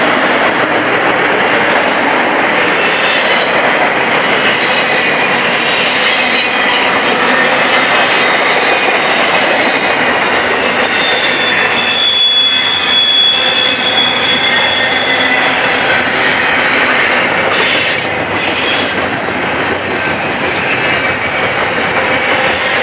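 Double-stack intermodal container cars rolling past on steel wheels: a loud, steady clatter of wheels on rail, with thin high wheel squeals drawn over it, one held for a few seconds about twelve seconds in.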